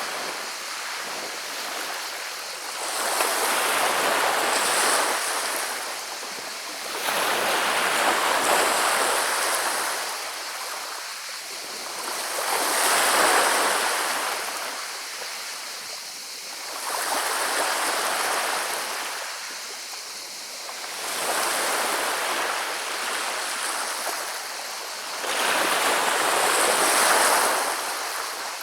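Sea waves washing over a pebble beach, rolling and rattling the pebbles as they surge in and draw back. The surges swell and fade about every four to five seconds, six times in all.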